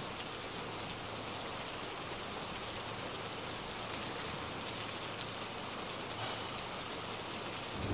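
A steady, even hiss like falling rain, with no breaks or separate sounds.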